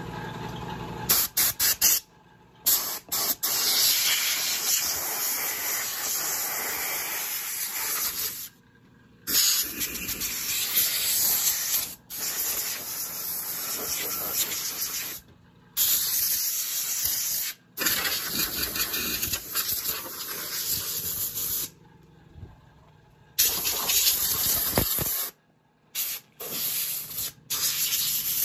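Compressed air hissing through an RV gas furnace in about six bursts of a few seconds each, each starting and cutting off sharply: dust and debris being blown out of the unit.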